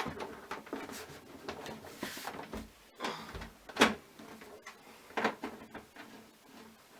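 A PC case side panel being fitted: a short sliding scrape about two seconds in, then a sharp knock and a couple of clicks as the panel is set in place.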